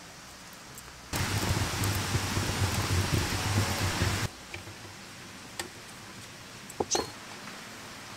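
Wood fire burning inside a wood-fired oven: a steady rushing hiss over a low rumble, starting about a second in and cutting off about three seconds later. After it, only low background with a few light clicks.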